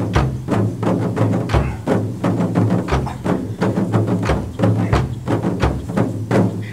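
Backing music with a quick, steady percussive beat over low sustained tones.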